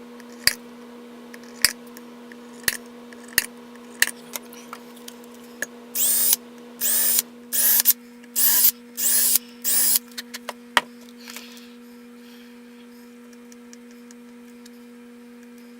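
A power drill driving small screws into hinges in five short bursts, each one whirring up in pitch as it spins, after a series of sharp clicks about once a second.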